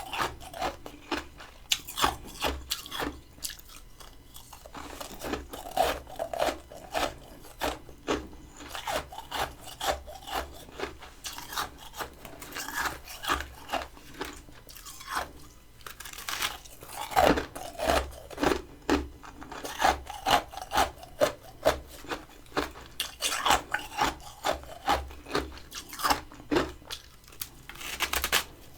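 Close-up crunching of crisp freezer frost being bitten and chewed, a rapid, irregular run of sharp crunches and rasps with a couple of short lulls.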